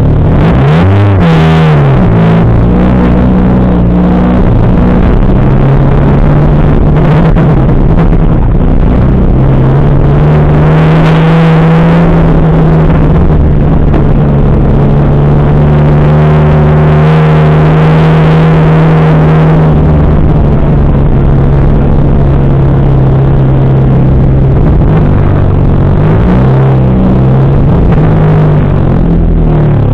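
Loud rallycross car engine heard from inside the cabin, rolling at low speed, with short throttle blips about a second in and again near the end and a steady drone in between.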